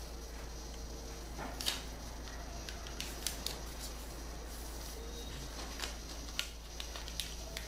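Origami paper being folded and creased by hand: a handful of short, sharp paper crackles and taps scattered through, over a steady low hum.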